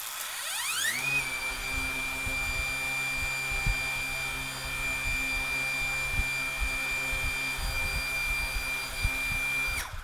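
Parrot Anafi quadcopter's four brushless motors and propellers spinning up with a rising whine over about a second, then holding a steady high whine at minimum idle speed. The whine stops abruptly just before the end.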